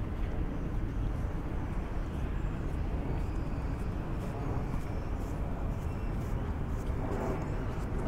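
Outdoor city ambience: a steady low rumble of distant traffic, with light footsteps on the pavement.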